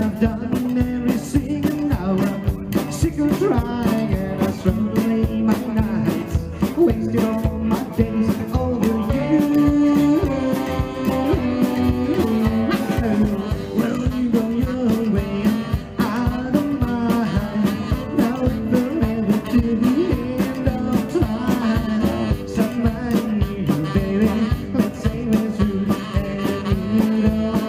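Live rock 'n' roll band playing with a steady beat: electric guitars, slapped upright bass and drums, with the saxophone on stage.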